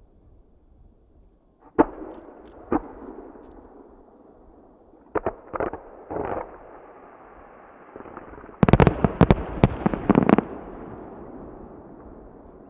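Aerial firework shells bursting: two single bangs about two seconds in, a few more around five to six seconds, then a rapid string of loud bangs about nine to ten seconds in. Each bang trails off in a rolling echo.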